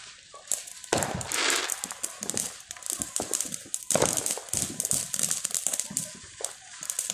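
Ground fountain firework spraying sparks: a rushing hiss that starts suddenly about a second in, over dense rapid crackling and popping.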